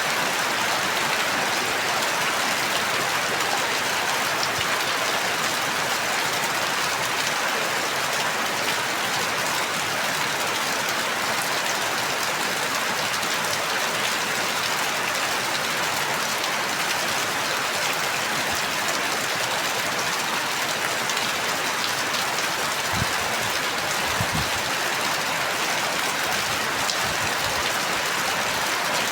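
Steady, heavy rain falling and pattering on surfaces, an even hiss. A few soft low thuds sound near the end.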